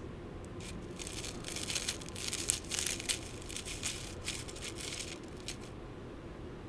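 Biscuit stick stirring and scraping in a plastic Yan Yan snack cup, dipped in chocolate cream and then in sugar sprinkles, giving a dense, fine crackle and rattle of grains against the plastic that stops about a second before the end.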